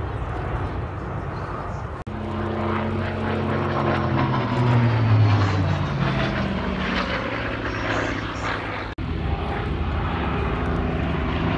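Piston-engined propeller warbirds flying past, a steady engine drone whose pitch falls as an aircraft passes, with the sound cutting out briefly about two seconds in and again near the end.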